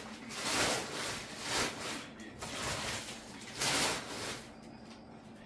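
Packaging rustling and rubbing as potted orchids are handled out of a shipping box, in several short noisy swells, dying down near the end.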